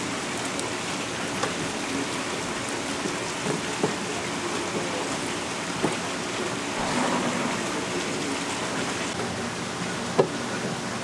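Kitchen knife cutting gizzard shad on a cutting board: a few scattered sharp knocks as the blade strikes the board, the loudest about ten seconds in, over a steady hiss.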